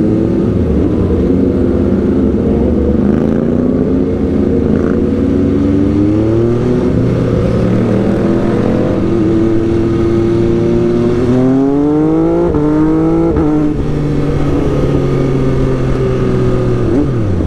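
MV Agusta F3 three-cylinder sport bike engine heard from on board, pulling up through the gears: the pitch rises in steps with short drops at each shift, climbs hardest about two-thirds of the way in, then eases back to a steady cruise.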